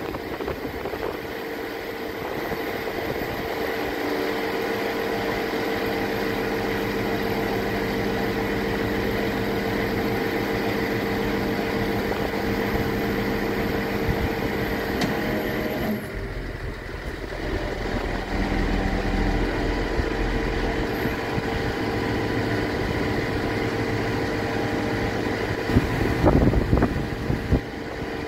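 Scania G490 truck engine running steadily while it drives the hydraulics of a Fassi F990 loader crane, with several steady humming tones over the engine. About halfway through the sound shifts: the highest tone stops and a deeper rumble comes in for a few seconds. Near the end there are a few loud clunks.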